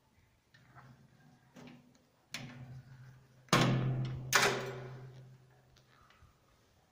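A series of knocks and clanks against the steel electrical panel enclosure, growing louder, with two loud clanks a little after halfway that leave a low ringing fading over about two seconds.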